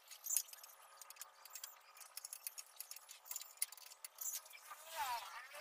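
Faint, scattered light clicks and taps of hands-on work at a motorcycle with its engine off, with a short squeaky sound near the end.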